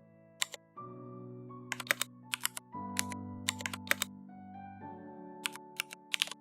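Computer keyboard keystrokes, sharp clicks in short bursts of a few quick strokes, over soft background music with sustained chords that change every two seconds or so.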